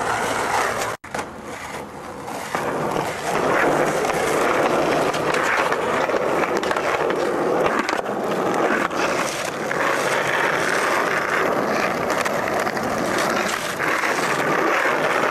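Skateboard wheels rolling over rough asphalt, making a continuous loud gritty rumble. The sound cuts out briefly about a second in.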